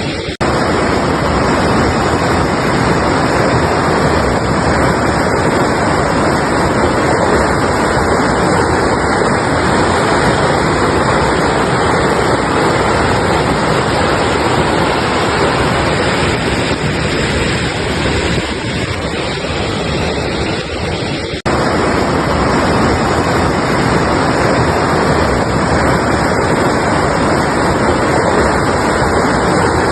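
Mountain river rushing over rocks, a steady loud wash of flowing water, broken by a brief sudden dip just after the start and again about two-thirds of the way through.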